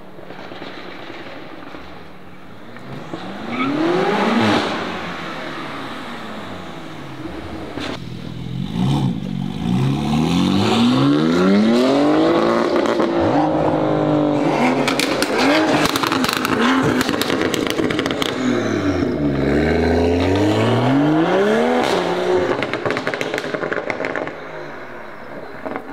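Modified BMW engine revving once briefly, then accelerating hard away, its pitch climbing and dropping through the gear changes. A run of rapid crackles comes about halfway through, and near the end the pitch dips and climbs again before the sound dies away.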